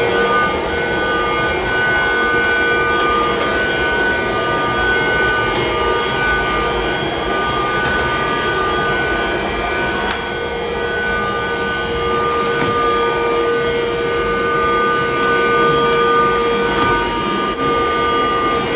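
Cordless stick vacuum cleaner running steadily: a whining motor over rushing air, as it is pushed across a tiled floor.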